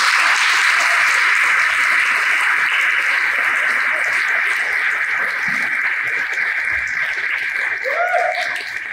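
Audience applauding, a dense, steady crowd clapping that eases slightly toward the end.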